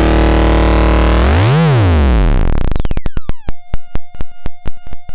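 Eurorack modular synthesizer playing a compressed drum signal blended with a BBD flanger/chorus module. It starts as a dense metallic drone with a comb-filter sweep that dips down and rises back about a second and a half in. Then come rhythmic drum hits, about four a second, under a tone that glides down and then holds steady.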